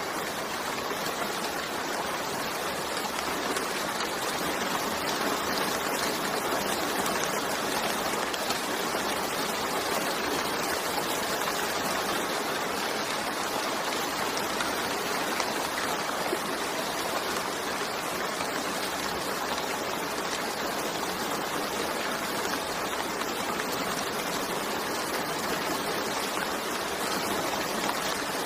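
Steady rainfall, an even hiss with no breaks or changes.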